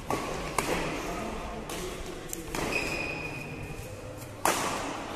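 Badminton rackets striking the shuttlecock during a doubles rally: a string of sharp smacks with a short echo, the loudest about four and a half seconds in.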